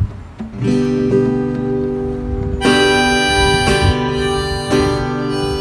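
Acoustic guitar strumming chords as a song's introduction, with a harmonica joining about two and a half seconds in and playing a held melody over it.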